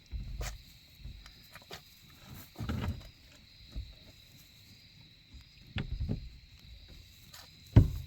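Berkshire sow grunting low during farrowing: a few short, deep grunts a couple of seconds apart, the loudest near the end beginning with a sharp knock.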